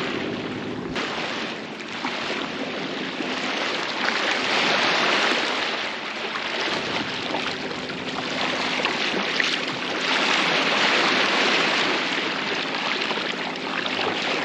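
Water rushing along a moving sailboat's hull, swelling louder twice, with a steady low hum beneath.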